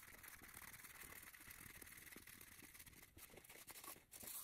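Faint rustling and soft handling of toilet paper being unrolled from the roll, a little louder near the end.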